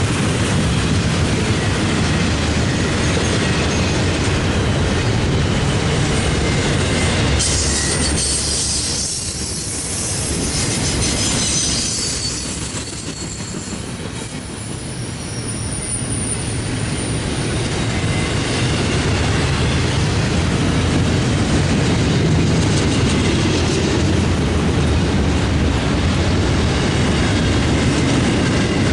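Long CSX intermodal freight train rolling steadily past, its container well cars making a continuous rolling noise. About seven seconds in, a high-pitched wheel squeal rises over it and lasts several seconds before fading.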